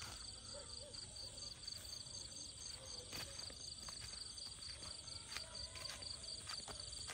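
Crickets chirring steadily, a fast, high-pitched pulsing trill, with a few faint clicks.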